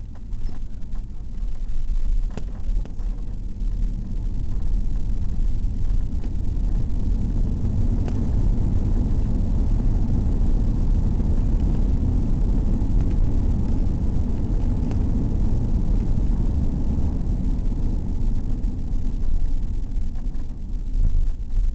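Cabin rumble of an Airbus A340-600 on its landing roll: a loud, steady low rumble of the engines and the rolling airframe. It swells about two seconds in and holds until near the end.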